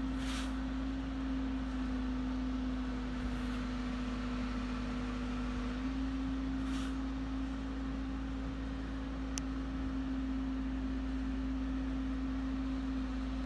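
A steady hum at one unchanging pitch over a low rumble, with a faint hiss now and then and a single sharp click a little past the middle.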